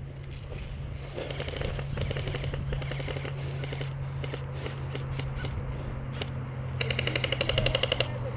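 Airsoft guns firing: a long rattle of rapid shots, then scattered single shots. A louder rapid full-auto burst comes near the end.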